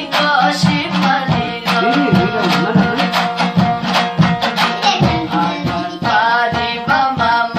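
A young male voice singing a folk melody over fast, steady strumming of a long-necked lute.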